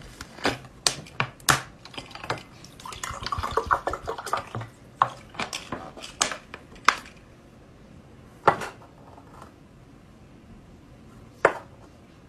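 A plastic water bottle and a glass tumbler handled on a table: a run of clicks and knocks, water poured into the glass, then two single sharp knocks of the glass against the table, one near the middle and one near the end.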